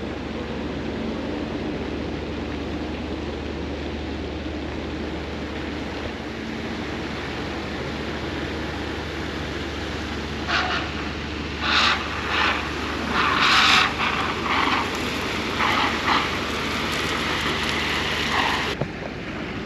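Steady low hum of the sailboat's engine as it motors slowly. About halfway through, irregular bursts of rushing, splashing water join it: a dredger's discharge pipe spraying a jet of water into the harbour channel.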